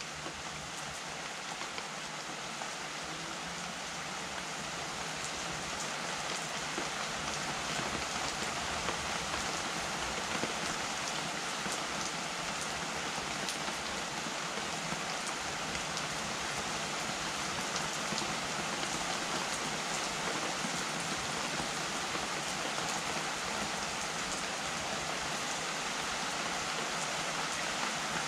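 Steady rain falling, with the patter of individual drops. It grows a little louder over the first several seconds, then holds steady.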